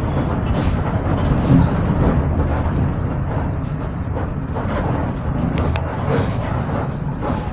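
2007 Marcopolo Torino bus on a Volksbus 17-230 OD chassis running along with steady engine and road noise. Brief hisses come through four times.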